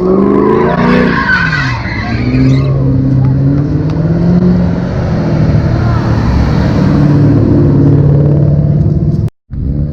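Car engine revving hard and then held at high revs, with tyres squealing about a second in; the sound cuts off suddenly near the end.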